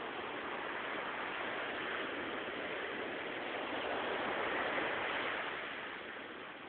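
Sea waves washing onto the shore: a steady rush of surf that swells to a peak about two-thirds of the way through, then eases off.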